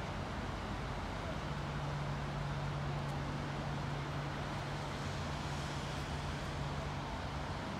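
Electric trains rolling slowly toward the station in the distance, over an even background rumble. A steady low hum comes up about a second and a half in and eases off near the end.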